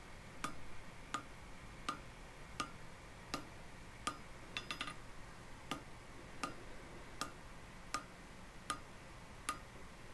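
Hammer blows on red-hot steel on an anvil, short sharp strikes at an even pace of about one every 0.7 seconds, with a quick flurry of lighter taps midway.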